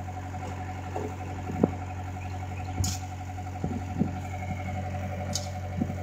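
Skid steer loader's diesel engine idling steadily, with several short clinks and knocks of a hand tool striking dirt.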